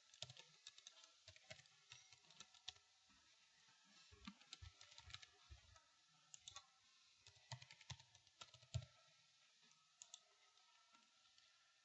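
Faint computer keyboard typing and mouse clicks: irregular keystrokes for about nine seconds, then only a stray click or two.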